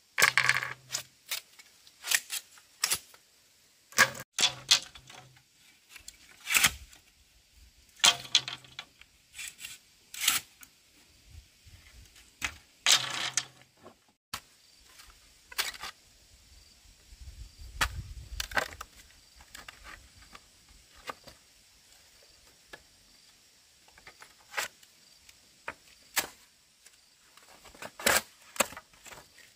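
Irregular wooden knocks and taps as wood or bamboo is handled and struck. There are louder strikes every second or two in the first half, then lighter scattered taps.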